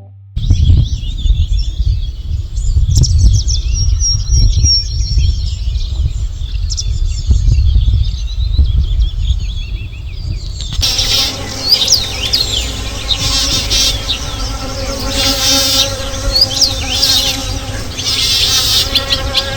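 Songbirds singing many short chirps and trills over a loud low rumble. About eleven seconds in, the sound changes abruptly: the birdsong gets louder and a steady hum of several tones joins it.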